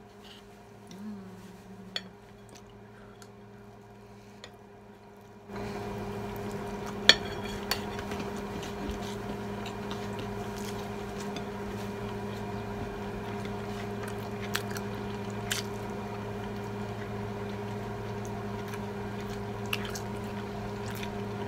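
Eating sounds at a meal: forks and cutlery clinking on plates, a few sharp clicks, the loudest about seven seconds in. About five seconds in, a steady hum starts suddenly and carries on under them.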